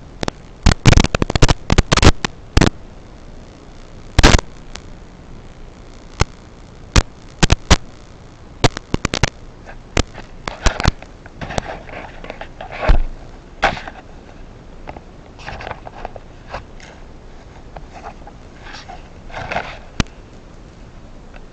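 Irregular sharp clicks and crackles over a low hiss, with no motor running; most fall in the first few seconds, then they come more sparsely.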